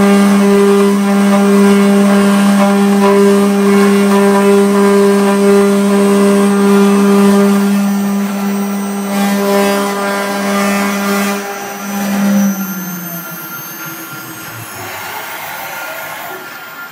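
CNC router spindle running with a steady hum while its cutter engraves an aluminium plate. About twelve seconds in, the hum drops in pitch and dies away, leaving a quieter machine noise.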